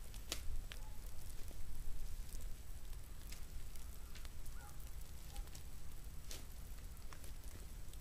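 Shovel digging into forest soil and leaf litter: the blade crunching and scraping through earth and dry leaves, with scattered short clicks over a steady low rumble.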